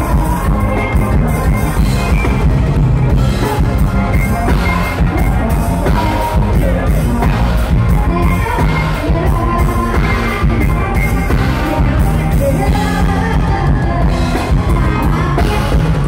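Loud live band music with a steady drum beat and a singer's voice.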